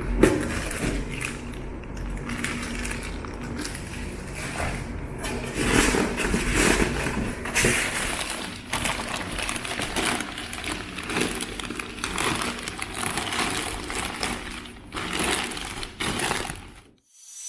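Packaging being handled: irregular rustling, scraping and knocking of box and wrapping material, with a few sharper knocks along the way.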